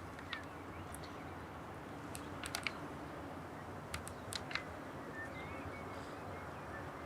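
Irregular light clicks and taps, some in quick clusters of two or three, over a steady low background noise.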